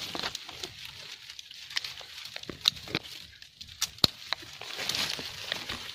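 Undergrowth being cut and pushed back by hand: leaves rustling, with several sharp snaps and cracks of twigs and branches. The loudest snap comes about four seconds in.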